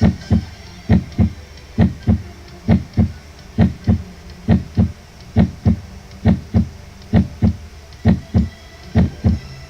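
Recorded human heartbeat: paired lub-dub beats, the first and second heart sounds, in an even rhythm of about 65 to 70 beats a minute.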